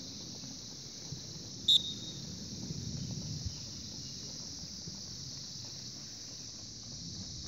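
Steady, high-pitched insect chirring, with one brief, sharp high chirp a little under two seconds in.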